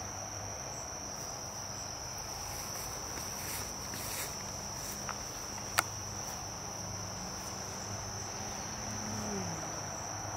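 Steady high-pitched chorus of insects calling without pause, with a single sharp click a little past halfway.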